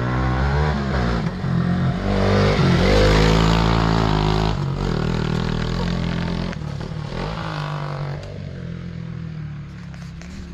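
Motorcycle engine running and revving, its pitch rising and falling. It is loudest a few seconds in and dies away near the end.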